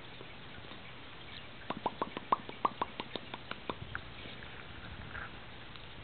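Pet parrot making a quick run of about a dozen sharp little clicks, several a second, starting about two seconds in and stopping after another two seconds.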